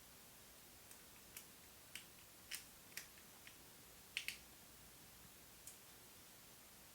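Faint, scattered small clicks and ticks of metal parts being handled as the tiny screws of a camera T-adapter are fastened, about nine in all, with the loudest pair about four seconds in.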